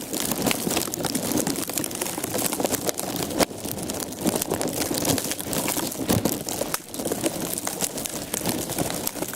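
Plastic wrapped around the camera rustling and crinkling against the microphone, a continuous handling noise with scattered sharp crackles.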